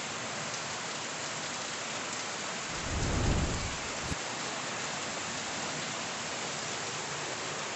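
Heavy rain falling steadily, with a low rumble of thunder that swells and fades about three seconds in.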